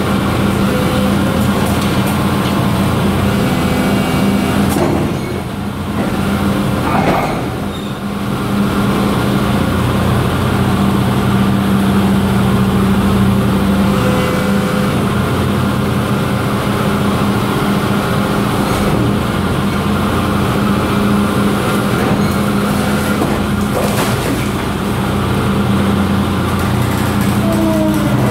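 Excavator engine and hydraulics running as a steady drone with a strong low hum while powering a hydraulic wedge rock splitter. The sound dips briefly about five and eight seconds in.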